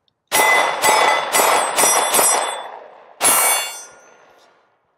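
Beretta APX Carry 9mm single-stack pistol firing six shots of lightweight lead-free Winchester Super Clean ammunition. Five come about half a second apart, then after a pause of about a second a sixth, each leaving a ringing tail.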